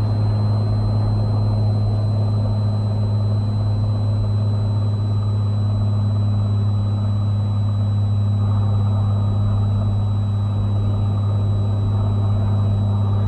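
Cessna 182T's six-cylinder Lycoming engine and propeller droning steadily in the cabin at reduced power on short final, with a faint steady high whine above the drone.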